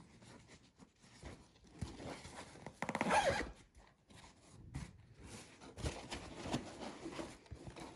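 Faint rustling and scraping of non-woven fabric storage boxes being handled and fitted one into another, with a short squeak about three seconds in.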